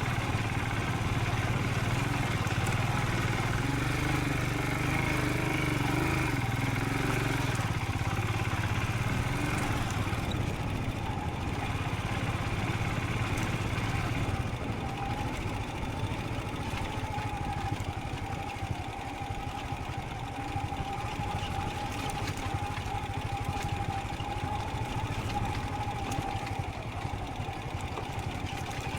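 Royal Enfield Scram 440's single-cylinder engine running steadily while riding, with road and wind noise. The engine note eases a little about halfway through, and a steady thin whine holds from then until near the end.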